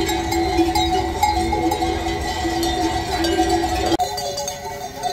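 Many livestock bells clanking and jangling together on a passing flock of sheep and goats, a dense, continuous ringing. The mix of tones shifts abruptly about four seconds in.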